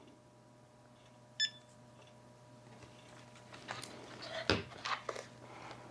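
A single short electronic beep about a second and a half in, followed by faint clicks and a knock as the FPV goggles and their battery pack are handled.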